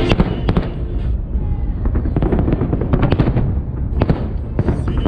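Fireworks bursting: rapid sharp bangs and crackles over a continuous low rumble. The bangs come in clusters, about half a second in, again around two to three seconds in, and once more at about four seconds.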